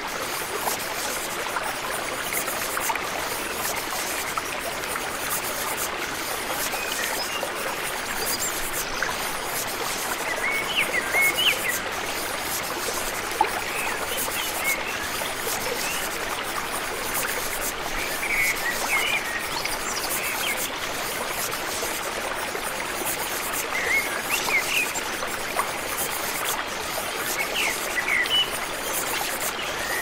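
Steady rushing of running water, like a stream, with short bird chirps every few seconds.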